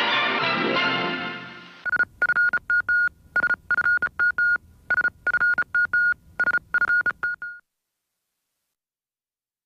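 Closing theme music fades out in the first two seconds. Then comes a run of electronic beeps at one steady high pitch, some short and some longer, in an uneven on-off pattern for about five and a half seconds, ending suddenly.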